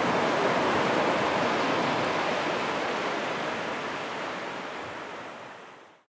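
Sea surf breaking and washing up a sandy beach: a steady rush of waves that fades out over the last few seconds.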